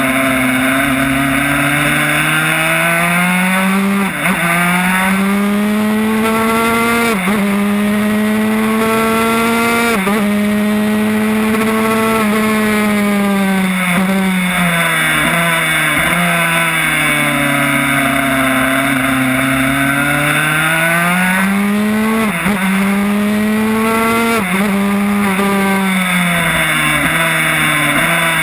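Yamaha YZ85 two-stroke single-cylinder engine in a 1994 Honda RS125 road racer, run hard around a track. The revs climb and drop sharply at each upshift, three times in the first ten seconds. They then fall away as the bike slows for a corner, and climb again with two more shifts before easing off near the end.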